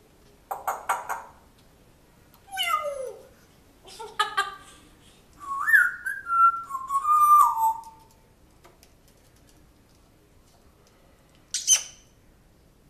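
African grey parrot calling and whistling: a few short squawks, a falling call, then a longer whistled phrase that glides up and down, and one sharp high call near the end.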